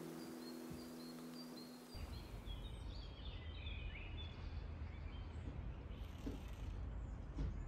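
Outdoor ambience: small birds chirping over a steady low rumble that comes in about two seconds in, when a few held low tones stop.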